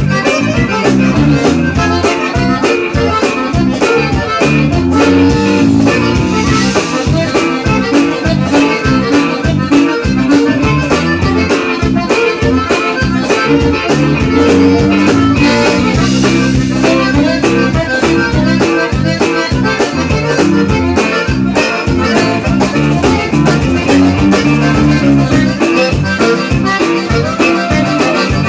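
Live Tejano conjunto band playing: two button accordions over electric guitar, electric bass and drum kit, with a steady beat.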